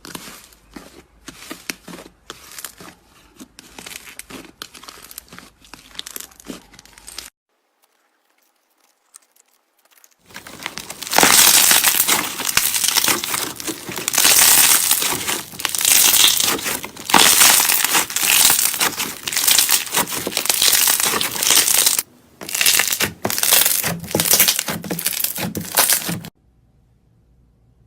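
Slime being squeezed and worked by hand, giving off a dense crackling of many fine pops and clicks. It is fainter at first, then after a short pause it is much louder, and it stops shortly before the end.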